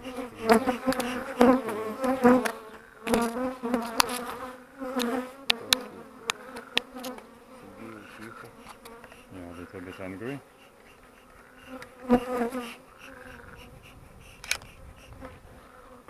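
Honeybees buzzing over an open hive, the buzz swelling and shifting in pitch as individual bees fly close, with scattered sharp clicks mostly in the first half.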